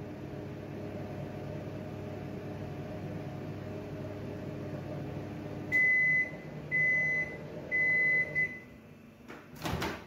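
Samsung microwave oven running with its steady magnetron hum, the sign that it is heating again after its control board's power supply was repaired. The hum stops about six seconds in and the oven gives three beeps about a second apart as the cycle ends. Near the end the door latch releases loudly as the door is opened.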